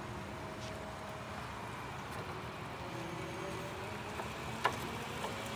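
Mitsubishi FBP30K battery-electric forklift driving on wet asphalt: a steady hiss of tyres on the wet surface with a faint whine from its electric drive, and a single sharp click near the end.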